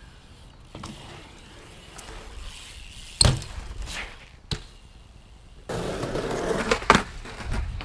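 BMX bike wheels rolling on concrete, with a few sharp clacks: one loud one about three seconds in, another at about four and a half seconds, and more in a louder rolling stretch near the end.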